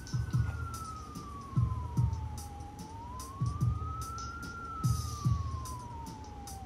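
Background music with a steady beat of low drum hits, over which a single siren-like tone slowly falls, rises and falls again.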